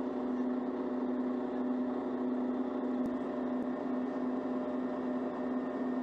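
Steady machine hum from the Mörser 16 120mm mortar vehicle, one strong low tone with fainter higher tones above it, unchanging throughout.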